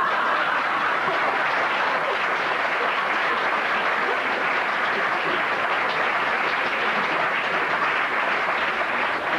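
Audience applauding, a steady, even clapping.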